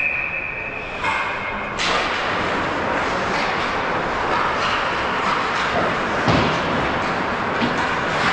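Ice hockey play on an indoor rink: skates scraping the ice and sticks and puck knocking, with thuds against the boards, the loudest at the start and another about six seconds in. A steady high tone sounds over the first second or two.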